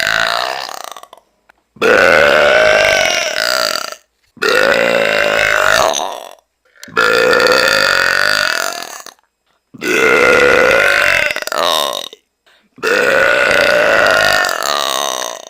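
A woman belching loudly, over and over: long, drawn-out belches of about two seconds each, with short pauses between them. One belch trails off about a second in, and five more follow.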